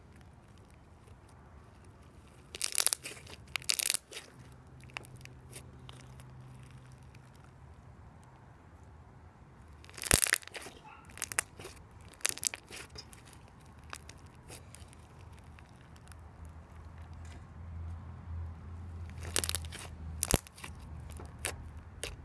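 Foam-bead slime squished and pressed close to the microphone, giving crackly, crunchy pops in three short clusters.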